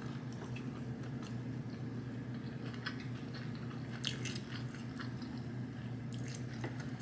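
Chewing of fried chicken, then the sticky, wet tearing of sauce-drenched fried chicken pulled apart by hand, heard as scattered soft clicks and crackles over a steady low hum. The most distinct crackle comes about four seconds in.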